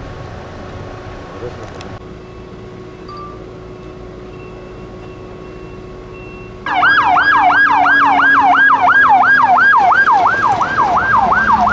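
Fire engine siren sounding a rapid yelp, rising and falling about three times a second. It starts abruptly about two-thirds of the way in and is loud over faint background noise.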